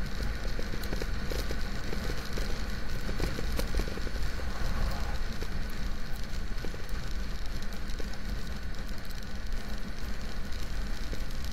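Steady rush of wind and road noise from riding at highway speed in the rain, with scattered ticks of raindrops striking the camera.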